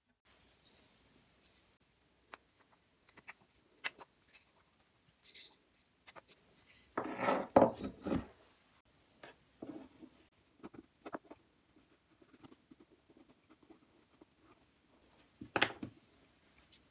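A round wooden disc being handled and test-fitted into a carved wooden eye socket: scattered light taps and knocks of wood on wood. About seven seconds in comes a rough scraping, lasting about a second, as the disc is pushed and rubbed in the socket, and another short scrape comes near the end.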